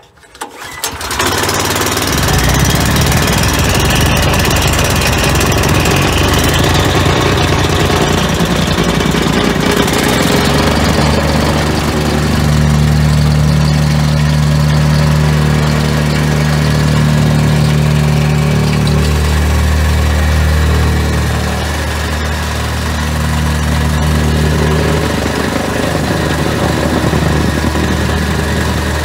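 The single-cylinder 389 cc petrol engine of a 270 kg reversible vibratory plate compactor catches on the recoil start, set on choke with a little throttle, and runs up to speed within a second or two. It then runs steadily while the vibrating plate compacts loose sand, with a deeper steady drone from about twelve seconds in.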